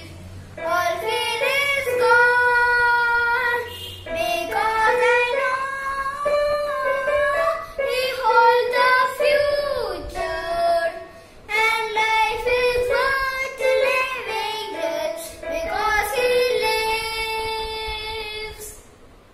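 A young boy singing a song solo, phrase by phrase with short breaths between, ending near the close.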